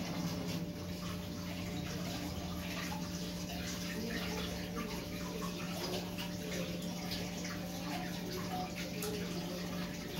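Pork simmering in Inca Kola in a pot: a steady bubbling and crackling hiss over a constant low hum.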